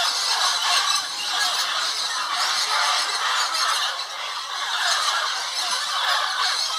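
A large flock of parrots calling together: a dense, unbroken din of overlapping squawks and screeches.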